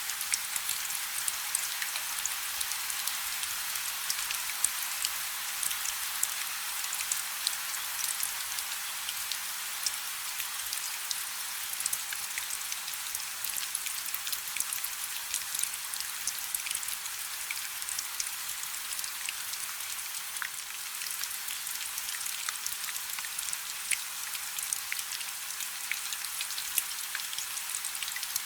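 Steady rain falling: a dense, even hiss dotted with many sharp ticks of individual drops, with no thunder.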